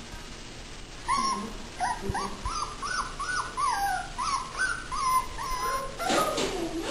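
German Shorthaired Pointer puppies whimpering and yipping. About a second in, a quick run of short, high whines starts, two or three a second, and a lower, rougher cry comes near the end.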